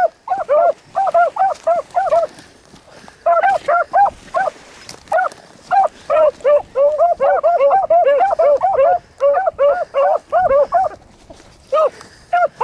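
Beagles baying on a rabbit chase: rapid short barks from several hounds, overlapping at different pitches, with a brief pause about two seconds in and another near the end.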